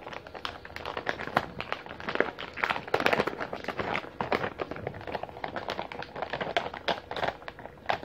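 Plastic packaging and paper crinkling with many small, irregular clicks and taps as an HDMI-to-VGA adapter is handled and taken out of its wrapping.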